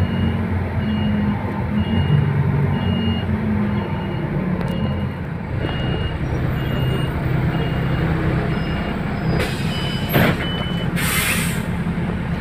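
City bus interior: the engine running with a low hum while a short high electronic beep repeats evenly, about three beeps every two seconds. Near the end comes a burst of pneumatic air hiss from the bus.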